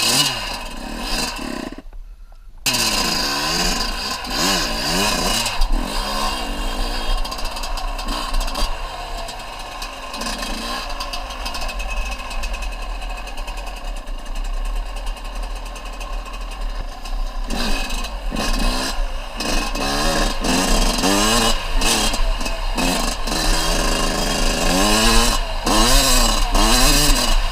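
Small off-road vehicle engine revving up and down again and again under riding, with a brief drop-out about two seconds in.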